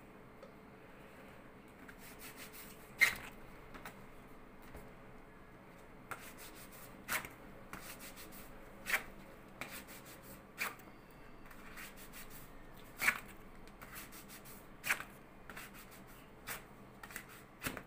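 A hand rubbing a cloth waxing strip down onto wax spread on a forearm, in short, sharp rubbing strokes about every two seconds, before the strip is pulled off against the hair growth.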